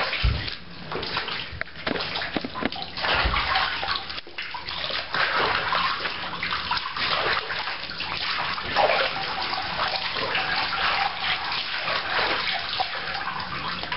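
Bath water running and splashing unevenly as it pours over the monkey to wet it.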